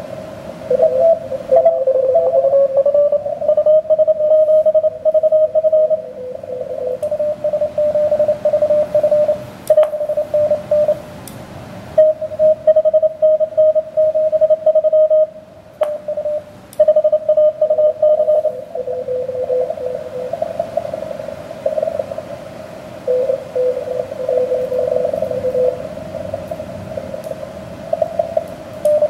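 Morse code (CW) signals on the 17-metre amateur band through a shortwave transceiver's speaker: several stations keying tones at slightly different pitches, overlapping, over steady band hiss, with a few sharp clicks. With the radio in split, this is callers answering the DXpedition station.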